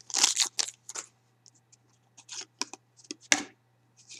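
Foil hockey-card pack wrapper crinkling as it is opened and the cards slide out and are handled. Short scattered scrapes and clicks, with a louder rustle about three seconds in.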